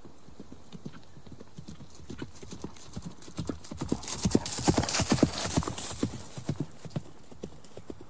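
Horse hooves clip-clopping, many quick hoofbeats that grow louder to a peak about five seconds in and then fade.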